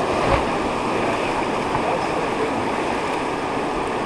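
Whitewater rushing steadily around a river raft, with one short thump near the start.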